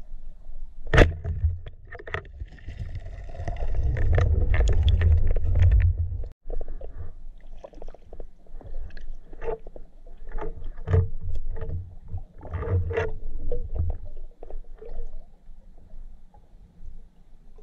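Muffled underwater sound picked up through a waterproof camera housing as a spearfisher swims. A sharp knock comes about a second in, then a few seconds of loud low rumbling water noise, then scattered clicks and light knocks.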